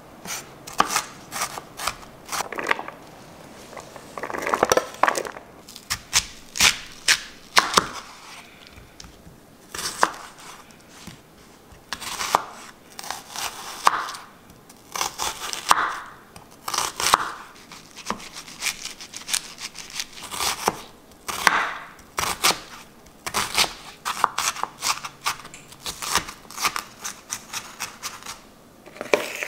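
Chef's knife chopping crisp bell pepper and onion on a wooden cutting board: runs of quick knocks of the blade on the board with crunchy slicing between them, pausing briefly now and then.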